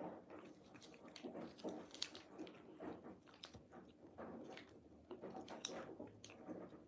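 Cat licking and chewing a treat from a squeeze-stick pouch: a run of faint, irregular wet smacks and clicks.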